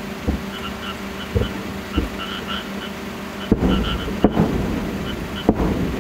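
Distant aerial firework shells bursting: six booms, three lighter ones followed by three loud ones in the second half, each loud one trailing into a rumbling, crackling echo.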